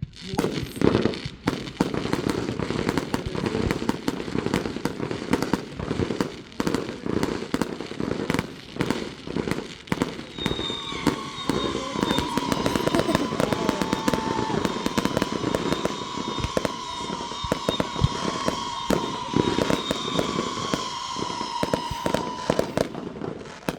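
Consumer fireworks going off in a dense barrage of rapid bangs and crackling pops. About ten seconds in, a long whistle joins, drifting slightly down in pitch, and stops shortly before the end.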